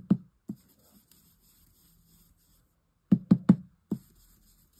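Ink blending brush tapped onto a small ink pad and onto card on the craft desk: soft knocks at the start, a quick run of three about three seconds in, and one more just after.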